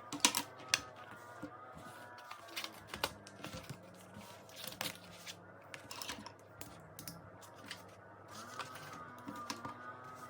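Irregular light clicks and taps, a few louder ones about a second in, over faint steady tones.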